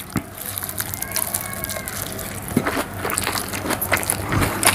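A man chewing a big mouthful of egg omelette dipped in curry gravy, with irregular mouth clicks and smacks.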